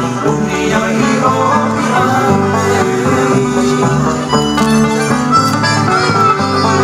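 Hawaiian hula music playing steadily, carried by plucked strings, in an instrumental stretch with no lyrics.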